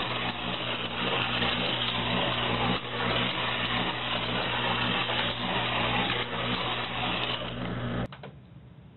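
Small toy race car's electric motor running steadily around a plastic track, a low hum with rattling and many small clicks. It cuts off suddenly near the end.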